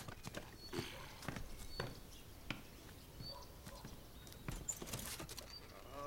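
Faint, irregular knocks and taps, with a few short, high bird chirps between them.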